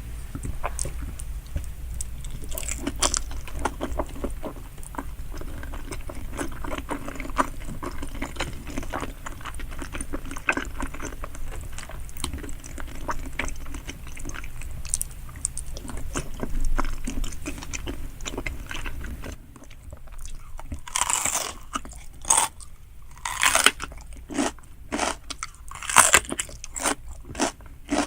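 Close-miked chewing of giant salmon sushi, with small wet clicks and smacks. About two-thirds of the way in, the steady low hum underneath drops away and louder, sharper crunchy bites and chews follow, a little under one a second.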